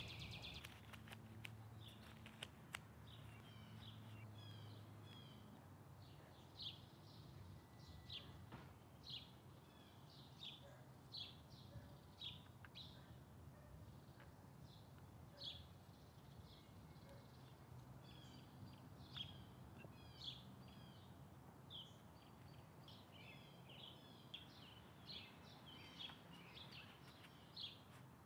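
Near silence: faint birds chirping, short high notes repeated irregularly over quiet room hum, with a few light clicks in the first few seconds.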